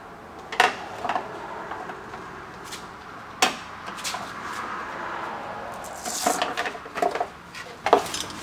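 Plastic push-pin fasteners being prised out of a car's underbody cover with a trim tool: a few sharp clicks spread over the first four seconds, then a busier run of plastic clicking, rattling and scraping near the end as the cover is worked loose and pulled down.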